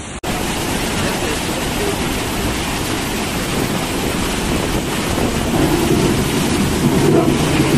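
Muddy floodwater from a landslide rushing across a mountain road and pouring over its edge, a steady loud rushing torrent.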